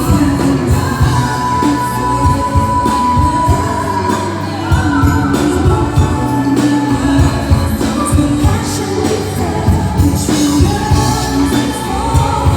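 Pop song with a steady beat and bass, and a singing voice holding long notes.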